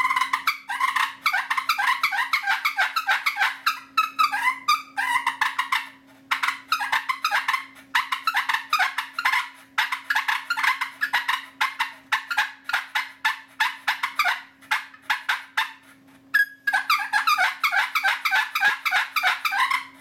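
Wooden push-button turkey call with several striker pyramids worked all together, giving fast runs of rasping purrs that imitate a turkey's fighting purr. It has short breaks about four, six and sixteen seconds in.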